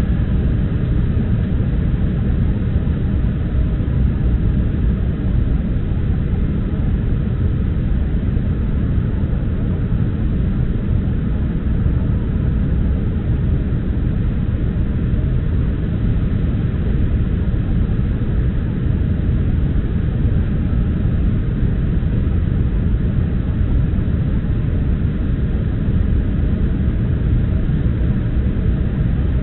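Steady cabin noise inside an Embraer 175 airliner on approach: a constant low rumble of airflow and its GE CF34 turbofan engines.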